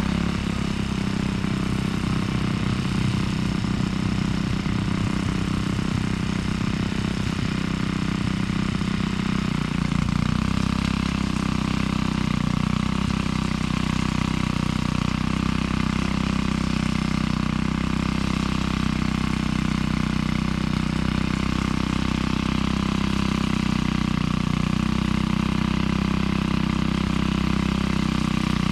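Engine running steadily, its note shifting slightly about ten seconds in.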